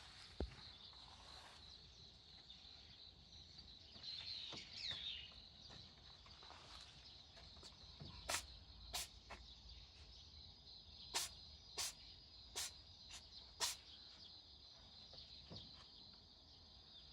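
A cat sneezing repeatedly: about seven short, sharp sneezes in quick succession from about eight seconds in, over a steady high insect drone.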